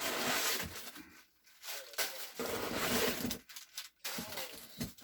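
Packing paper being torn and crumpled by hand in three bursts while a wrapped item is unwrapped.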